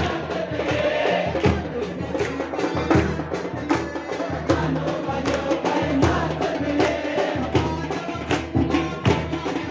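Devotional kirtan music: a steady percussion beat, a stroke roughly every three-quarters of a second, over held low notes.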